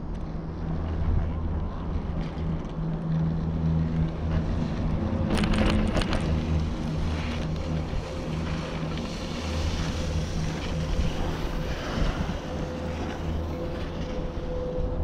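Riding a 1986 Doppelmayr detachable quad chairlift: a steady low hum of the running haul rope and chair, with a short clatter a little over five seconds in as the chair's grip rolls through a tower's sheave train.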